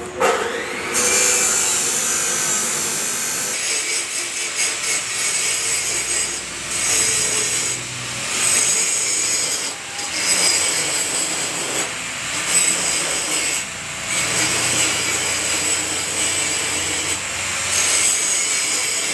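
TIG welding arc hissing as a bead is run with a hand-fed filler rod, starting about a second in and dropping out briefly several times as the arc is broken and restruck.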